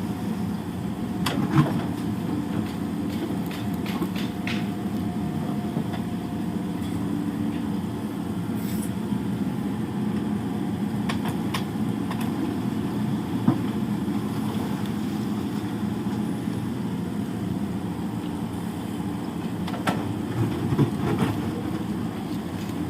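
Excavator's diesel engine running steadily, with a few sharp knocks scattered through it, several of them near the end.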